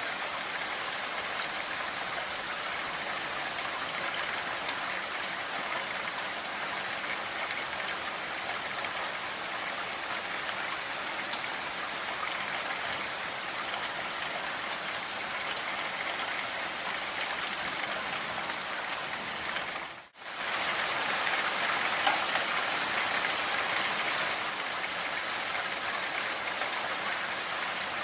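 Steady rain falling, an even hiss of drops. About two-thirds of the way through it drops out for a split second, then comes back slightly louder for a few seconds before settling again.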